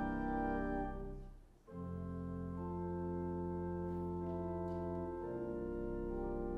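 Pipe organ playing slow, sustained chords. About a second and a half in the sound briefly dies away, then a new chord enters with a deep bass note that holds for a few seconds before dropping out, leaving the upper voices sounding.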